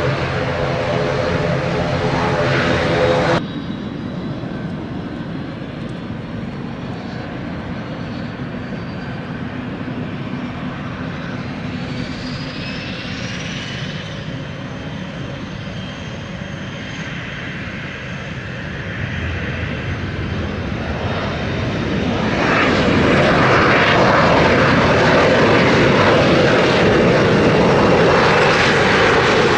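Aircraft engines on the runway. First comes the steady propeller drone of a turboprop ATR 72, which stops at a cut about three seconds in. Then a business jet's engines give a thin whine that rises in pitch, and from about two-thirds of the way through they grow much louder as the jet rolls along the runway.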